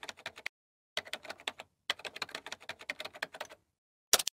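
Computer keyboard typing sound effect: runs of rapid key clicks broken by short pauses, with a brief, louder burst of clicks near the end.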